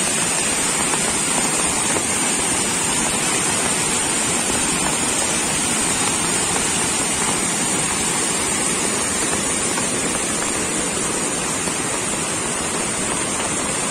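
Muddy flash-flood water rushing over rocks down a swollen hill stream, a loud, steady rush of water.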